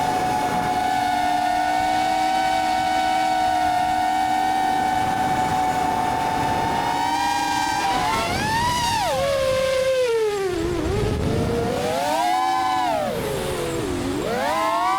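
FPV racing drone's electric motors and propellers whining. The pitch holds nearly steady at first, then swoops down and back up several times as the throttle is cut and opened again.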